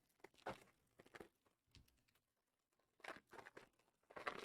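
Near silence, broken by a few faint, short clicks and crinkles scattered through it.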